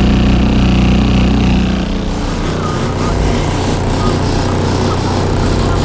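Four Sundown 15-inch subwoofers in a blow-through box playing loud, deep sustained bass notes, heard through the truck's body. The deepest note fades about two seconds in while a slightly higher bass tone carries on.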